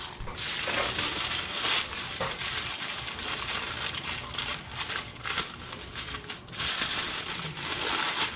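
Foil crinkling and crumpling as it is folded and pressed closed into a packet around a seasoned fish fillet, a dense run of small crackles.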